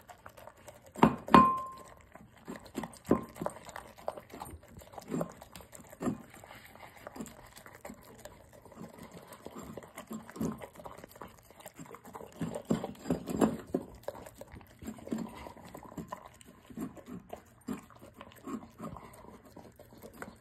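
A dog eating from a small bowl: irregular wet licking and chewing sounds throughout, with a louder knock of the bowl, ringing briefly, about a second in.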